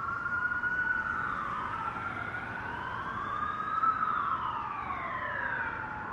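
Sirens wailing: two or three siren tones slowly rising and falling and crossing one another, over a steady background hiss.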